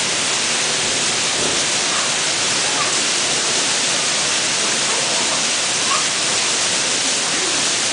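Steady rushing hiss of running water in an aquarium seal pool.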